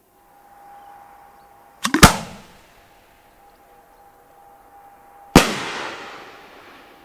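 Homemade firework ball shell fired from a mortar: a faint hiss, then a sharp launch thump about two seconds in, and some three seconds later the shell bursts in the air with a loud bang that rolls away in a long fading echo.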